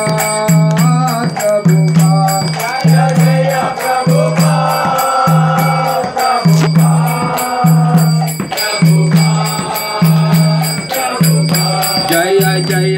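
Devotional kirtan: a group chanting a mantra to a mridanga drum beating a steady rhythm of deep strokes, with a jingling, ringing percussion over it.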